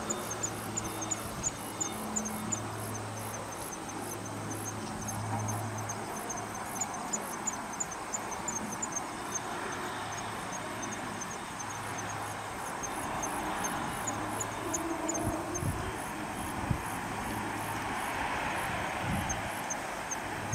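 Airbus A321neo turbofan jet engines on landing: a steady rushing noise through touchdown and rollout that grows louder near the end, with insects chirping in a rapid regular rhythm throughout.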